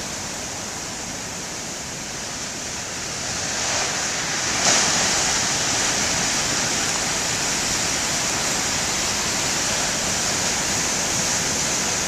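Large ocean waves breaking, with a steady rush of surf. About a third of the way in, a big wave crashes and the surf stays louder afterwards.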